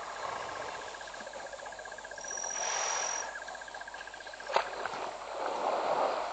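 African elephant splashing as it wades and bathes in a river, with bursts of water noise about three seconds in and again near the end. Behind it an insect trills in a fast, even pulse that stops about five seconds in, and there is one sharp click just before.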